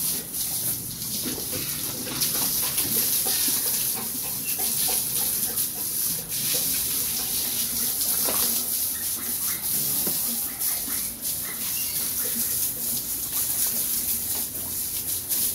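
Water spraying from a hose over pigs and the wet floor of their pen, a steady hiss, as the pigs are hosed down for their bath.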